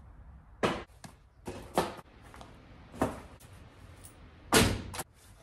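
A series of short thumps and slaps, about six of them, as tossed shoes land and knock against things. The heaviest, longest thump comes about four and a half seconds in.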